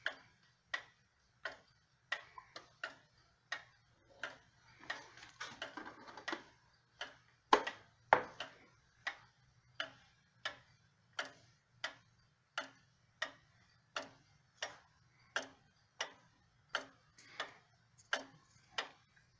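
1920s Sessions banjo wall clock's time-only pendulum movement ticking steadily, about three ticks every two seconds. A brief rustle and two louder knocks come about halfway through.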